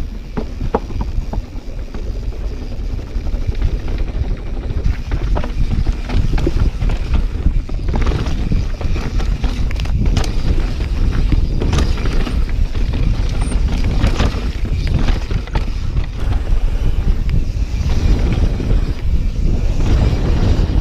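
Mountain bike riding down a wet downhill trail: a steady wind rumble on the microphone with frequent clicks, knocks and rattles from the bike and its tyres over the rough ground.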